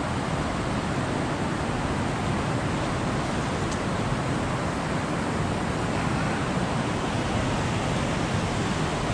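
Fast-flowing creek water rushing steadily.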